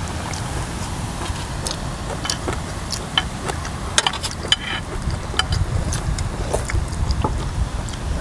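Close-up eating sounds: chewing and lip smacks, with scattered short clicks of metal spoons against the bowl. Under them runs a steady low rumble of wind on the microphone.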